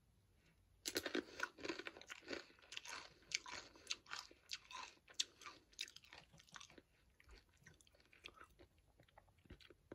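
A blue chip dipped in salsa being bitten and chewed close to the microphone: a run of crisp crunches starting about a second in, thinning to occasional soft crunches over the last few seconds as the chip is chewed down.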